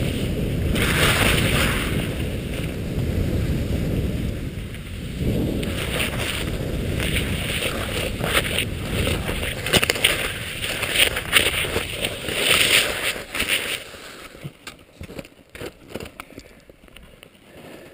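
Cross-country skis hissing and scraping over snow on a downhill run, with wind rushing across the microphone. About fourteen seconds in it drops much quieter, leaving scattered crunches and knocks in the snow.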